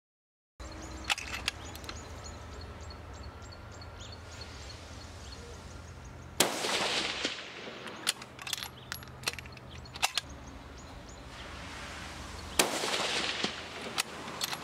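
After a brief silence, two rifle shots from a 6.5 Creedmoor about six seconds apart, each a sharp crack that trails off over about a second of echo. A few sharp clicks fall between them.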